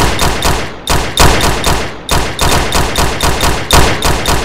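Gunfire sound effect: several bursts of rapid automatic fire, about eight shots a second, each burst about a second long with brief gaps between.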